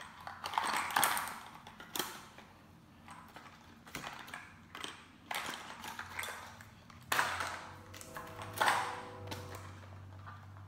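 Handcuff package being handled and pried at without coming open: a string of irregular clicks and rustles of the packaging, with a faint ringing tone in the second half.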